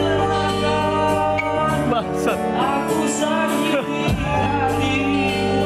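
A man singing into a microphone with electronic keyboard accompaniment from a Yamaha PSR-SX arranger keyboard. The voice slides and bends between notes over steady held keyboard chords.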